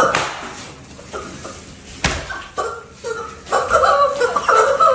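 Rubber screaming-chicken toys squawking amid laughter, with one sharp smack about two seconds in. Squealing and laughing grow loud in the last second and a half.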